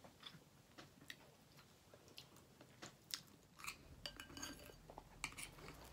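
Faint, scattered clicks and scrapes of a metal spoon against a ceramic bowl, with soft chewing.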